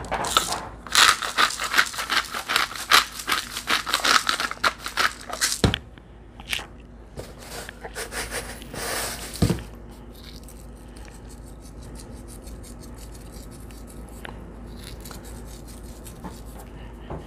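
Salt and pepper being ground over raw split quail halves: a fast run of crunching clicks for the first five seconds or so, a few sparser taps and scrapes, then fainter, finer grinding ticks from a pepper grinder in the second half.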